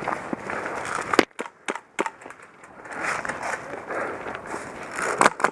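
Footsteps crunching over rough ground as a player moves, with irregular sharp clicks. A single sharp crack about a second in is the loudest sound, and there is a quick run of clicks near the end.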